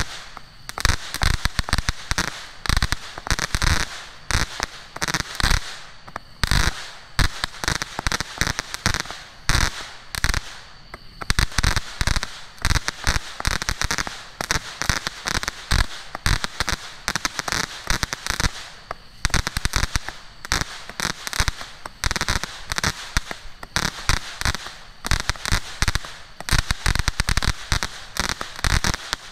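T-Sky Fireworks Jewel Strike 100-shot, 200-gram cake firing: a rapid non-stop string of shots with crackling bursts.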